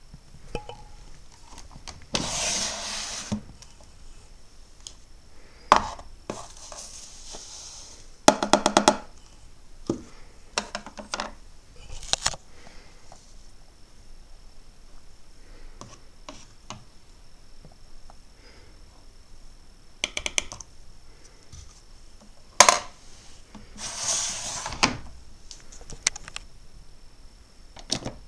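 Miele Novotronic W923 front-loading washing machine early in its wash cycle: short hisses and fast rattling clicks with single knocks, separated by quiet stretches.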